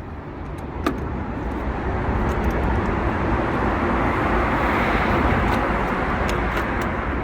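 A road vehicle passing by, its tyre and engine noise swelling to a peak about five seconds in and then easing. A single sharp click about a second in, and a few clicks at the end.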